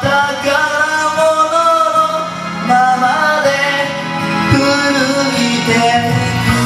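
Man singing a ballad into a handheld microphone over a karaoke backing track, his voice amplified and carrying the melody.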